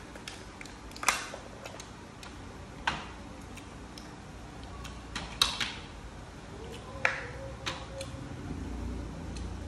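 Cooked lobster shell being cracked and picked apart by hand: a handful of sharp, irregular cracks and clicks, with smaller ticks between them.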